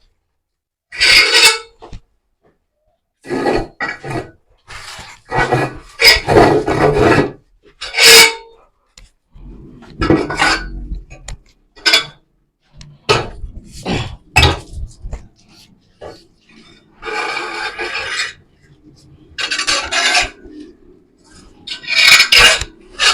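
Irregular scraping and rasping strokes with short pauses between them, from sawdust litter being worked on a pen floor.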